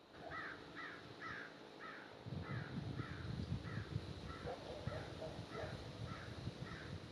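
A crow cawing, a steady run of about a dozen caws at roughly two a second. About two seconds in, a low rumble comes up underneath.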